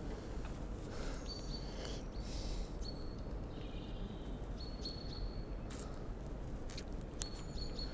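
Low steady background rumble, with a small bird calling several times in short, thin, high notes of steady pitch. A few faint clicks near the end.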